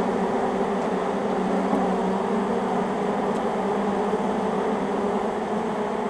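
A honey bee swarm buzzing in a steady, even hum: a dense mass of bees crowding the front of a hive box, with single bees flying close past.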